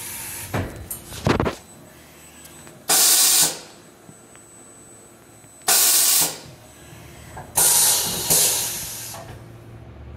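Coolant mist spraying from a CNC mill's coolant nozzle in short hissing blasts, about four times, each roughly half a second to a second long, over the faint steady running of the machine.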